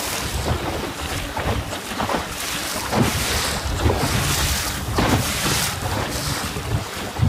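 Wind buffeting the microphone over choppy water, with waves splashing every second or so.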